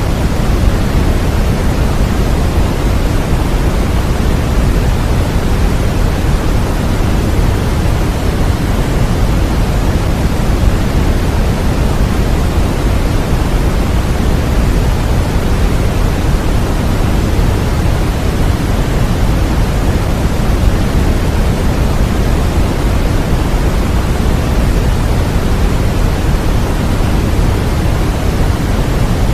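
Continuous baby-sleep white noise: a steady, unchanging rush, deeper than a plain hiss.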